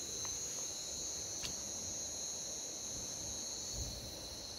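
Steady high-pitched chorus of night insects, two continuous tones, the higher one dropping away near the end. A faint click about a second and a half in.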